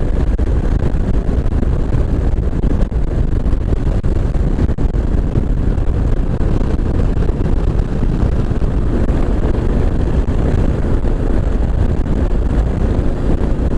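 Wind buffeting a microphone on a moving Kawasaki KLR 650, steady and loud, over the motorcycle's single-cylinder engine running at road speed.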